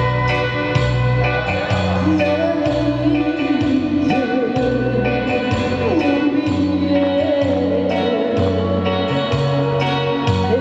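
A woman singing with long, sliding held notes into a microphone over live backing music with a repeating bass line and a steady beat. Her voice comes in about two seconds in.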